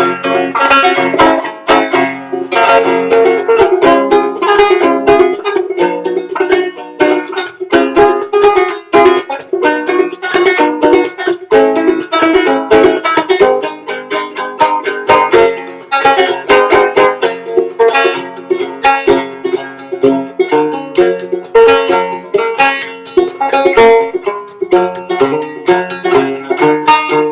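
Banjo played solo, a fast, steady run of plucked notes and strums.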